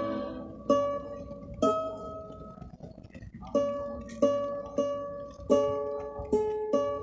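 Slow instrumental worship music on a plucked string instrument, picking single notes that each ring and fade, with a brief pause about halfway through.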